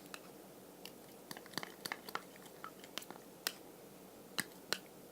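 Glue and slime activator being stirred together into slime: irregular small sticky clicks and squelches.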